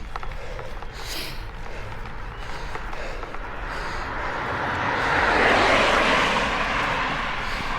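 A motor vehicle approaching and passing, its noise swelling to a peak about two-thirds of the way through and then fading.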